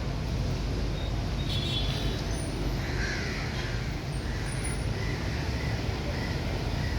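Birds calling in short, repeated calls, a string of them in the last couple of seconds, over a steady low background rumble.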